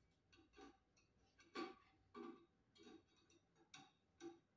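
Faint, irregular clicks and ticks as hands fit small parts and screws into the light-kit fitting at the hub of a Harbor Breeze ceiling fan.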